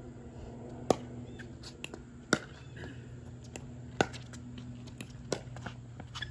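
Pickleball paddles striking a plastic pickleball in a rally: four sharp pops about a second and a half apart, with fainter ticks between them, over a low steady hum.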